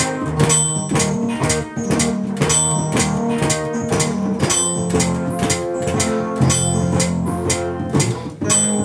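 A song played with guitar, bass and a drum kit, the drums keeping a steady beat.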